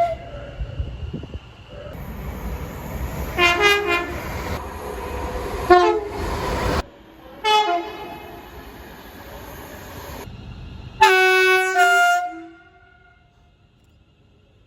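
Train horns sounding in short multi-note chord blasts over the low rumble of passing trains, with abrupt cuts between recordings. A longer, loud chord blast comes about eleven seconds in.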